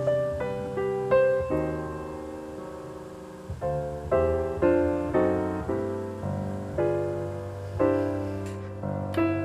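Background piano music: a gentle melody over chords, each note struck and fading away.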